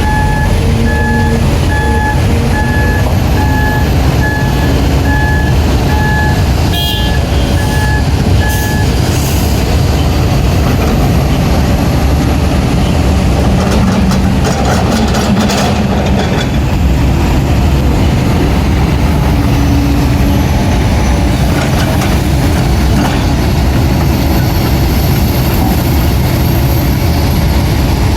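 Heavy diesel engines of a Kobelco excavator and a dump truck running steadily under load, with a reversing alarm beeping evenly for about the first nine seconds. A few short knocks come about seven seconds in and again around fifteen seconds.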